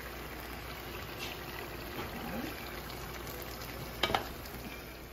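Pot of potato greens simmering in oil and broth, a steady bubbling hiss as it cooks down. A metal spoon knocks against the pot once about four seconds in.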